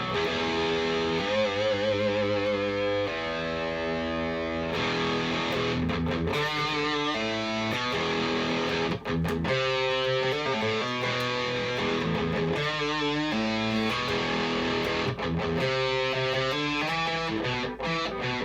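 Harley Benton 550 Deluxe II single-cut electric guitar played through an amp: held notes with wavy vibrato, chords and quick runs of notes.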